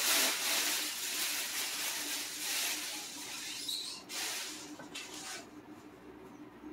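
Thin plastic packaging sheet rustling and crinkling as it is pulled out and bundled up, loudest in the first few seconds and fading, with two shorter rustles about four and five seconds in.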